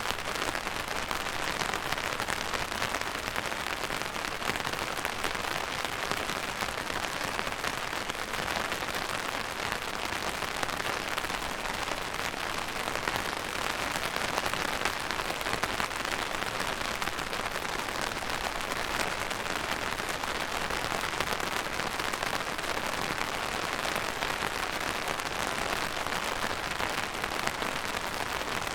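Steady rain falling and pattering on a surface, a dense even hiss of many small drops with no break or change.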